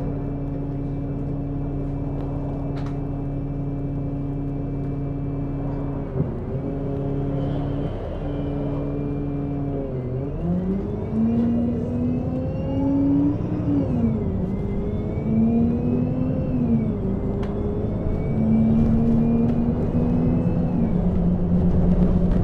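Bus engine running steadily at idle, then pulling away: from about ten seconds in its pitch rises and falls back three times as it accelerates through the gears, growing louder.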